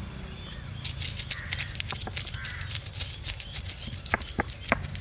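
Granite stone roller of an ammikkal grinding slab crushing dry-roasted whole spices (cinnamon, bay leaves, pepper, cumin), a rapid run of sharp cracks and crunches starting about a second in.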